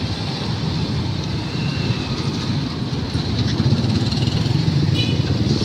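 Street traffic with small motorcycle engines running close by: a steady engine rumble over road noise.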